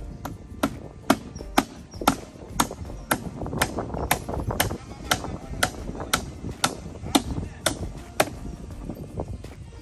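Steady hammer blows at about two a second, some sixteen sharp strikes in a row that stop a little after eight seconds in.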